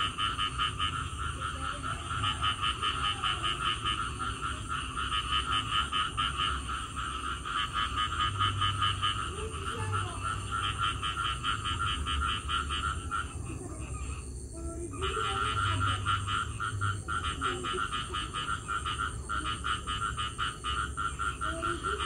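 Chorus of many frogs calling after rain: a dense, fast-pulsing calling that thins and drops out briefly about two-thirds of the way through, then resumes.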